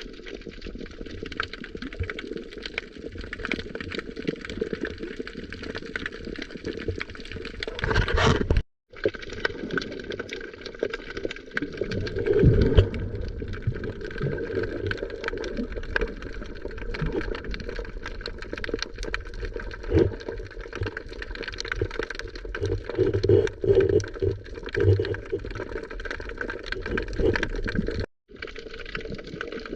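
Sea water lapping and gurgling against a rocky shore, a steady wash full of small crackling clicks with a few louder splashes; the sound cuts out briefly twice.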